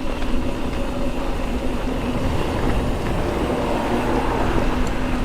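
Mountain bike rolling along, with wind rumbling on the microphone and a steady hum from the tyres.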